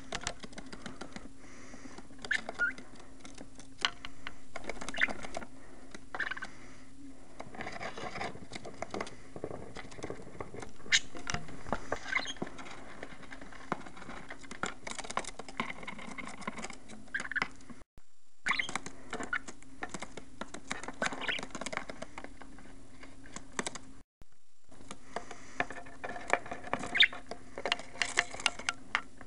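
Pet budgies chirping in short notes amid scratching and clicking as they move about, over a steady low hum. The sound cuts out briefly twice.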